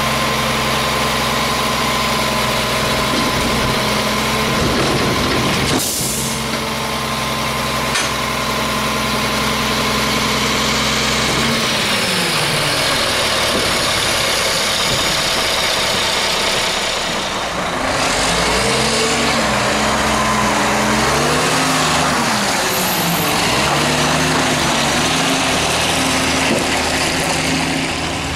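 CCC McNeilus rear-loader garbage truck's diesel engine idling steadily, with a short hiss about six seconds in. From about halfway through, the engine revs rise and fall over and over.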